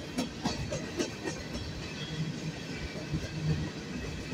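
Freight train of covered grain hopper cars rolling past, with steady wheel and rail rumble. The wheels click over rail joints, most plainly in the first second and a half.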